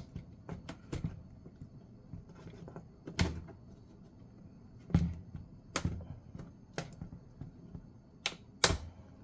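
Sharp clicks and knocks of a plastic laptop case being handled during disassembly. About half a dozen come at uneven intervals, the loudest near the end.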